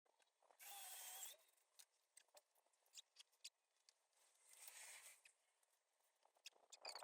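Faint workshop handling noises: two short scraping strokes a few seconds apart, each with a slight squeak, among scattered light clicks and taps.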